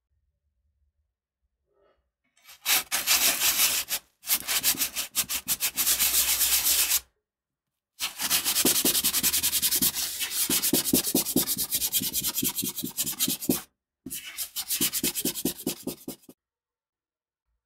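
Rapid back-and-forth rubbing strokes against a surface, in four runs separated by short pauses.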